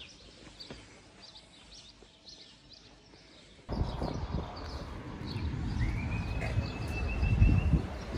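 Small birds chirping faintly over quiet outdoor air. About three and a half seconds in it cuts abruptly to louder street ambience: low rumbling wind buffeting the microphone and distant traffic, with a long, steady high whistling tone for about two seconds.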